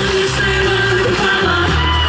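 Loud music with a sung voice over a steady bass line.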